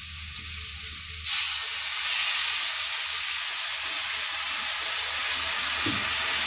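Water poured into hot mustard oil in an aluminium kadai of frying hog plums. A quieter frying sizzle jumps about a second in to a sudden loud hiss, which holds steady as the water hits the hot oil and steams.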